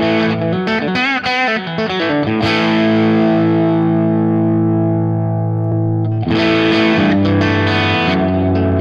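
Distorted electric guitar through a Fractal Axe-FX III modelling a Suhr Badger 18 amp with a crunchy overdriven tone: a few picked notes, then a chord left to ring, then re-struck and played on about six seconds in. This is an A/B of the cab block's Tape 35µs preamp: it is on at first and switched to None partway through.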